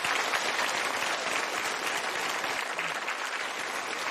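Studio audience applauding steadily after a guilty verdict is announced.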